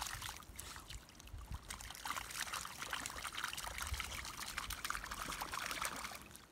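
Muddy puddle water splashing and sloshing as a working cocker spaniel paws and wades through it, a dense run of small splashes that thins out briefly about a second in and fades away at the end.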